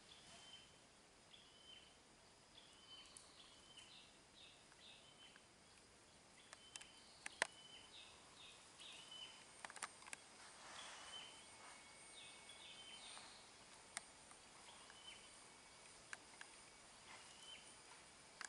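Faint natural ambience: many short high-pitched chirps repeating at irregular intervals, a few sharp clicks, and a thin steady high tone in the second half.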